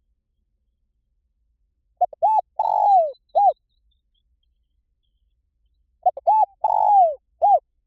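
Spotted dove cooing: two phrases about four seconds apart, each a few short coos followed by a longer coo that falls in pitch, and a last short coo.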